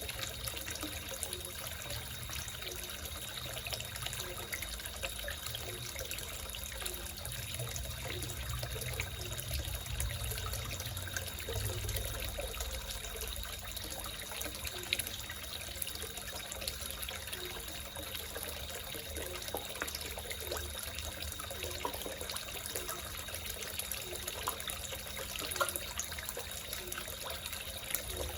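Water trickling and splashing steadily into a small koi fish pond, with frogs croaking faintly and repeatedly in the background.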